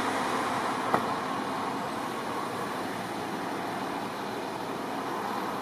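Steady highway traffic noise: vehicles and tyres passing on the road, with one short click about a second in.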